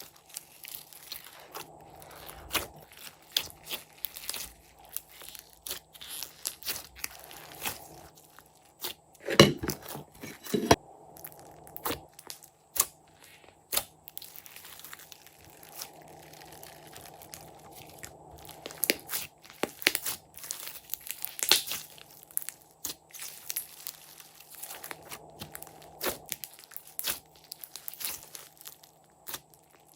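Glossy slime being mixed and squished by hand, giving irregular crackling and clicking pops, loudest in a cluster about a third of the way in.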